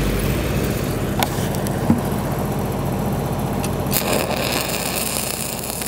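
Stick-welding arc crackling and hissing steadily, with more hiss from about four seconds in.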